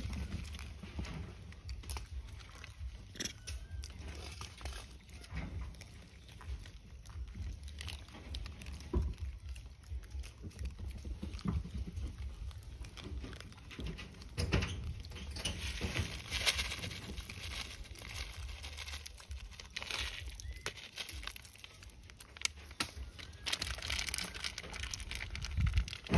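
Outdoor ambience: a low steady rumble with scattered soft rustles, crunches and clicks, and a couple of brief noisy bursts.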